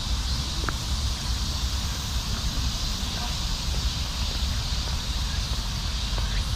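Steady high hiss of insects in the park's trees, over a low, uneven rumble of wind on the microphone.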